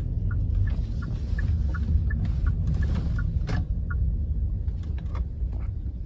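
Steady low rumble of a car heard from inside the cabin.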